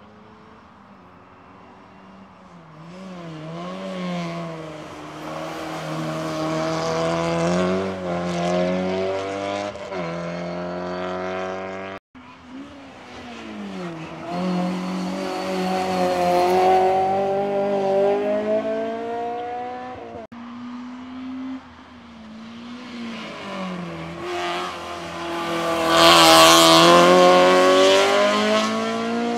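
Race cars climbing a hillclimb course, their engines revving up through the gears with a pitch that rises and steps down at each shift as each car approaches and passes. There are three separate passes with two abrupt cuts, the loudest and closest pass near the end.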